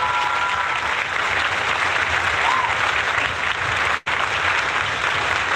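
Crowd applause played as a sound effect: steady clapping throughout, with a faint whistle, briefly cutting out about four seconds in.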